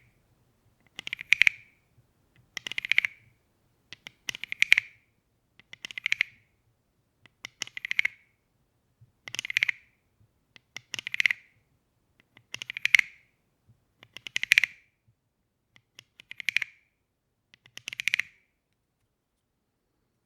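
Wooden frog percussion toy croaking: a stick scraped along its ridged back, eleven rasping croaks about every second and a half to two seconds, each a quick run of clicks.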